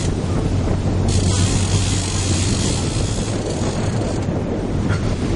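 Sportfishing boat's engines running steadily with a low hum, under wind gusting across the microphone and the wash of water at the stern.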